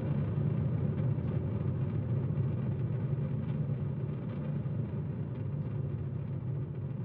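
Low, steady rumbling drone that fades slowly.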